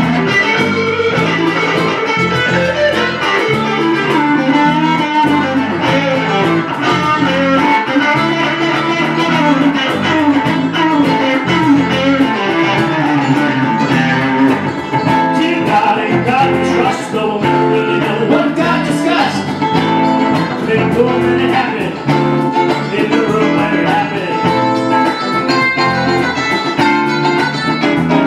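Live band playing an instrumental passage on electric guitars over a cajon beat.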